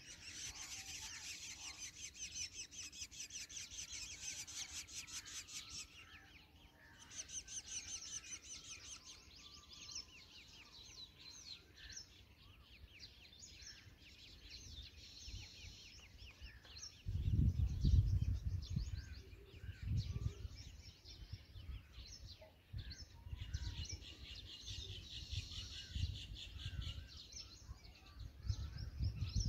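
Rapid high chittering in three spells, the longest at the start, from black drongo nestlings begging at the nest. A few low rumbling bumps about halfway through are the loudest sound.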